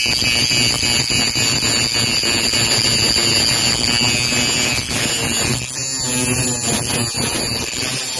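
Power grinder running steadily with a high-pitched whine over grinding noise, grinding a new rail down to match the old rail at the joint.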